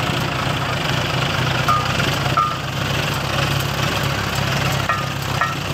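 John Deere 55 HP tractor's diesel engine running steadily at idle close by, with a few short high-pitched beeps over it.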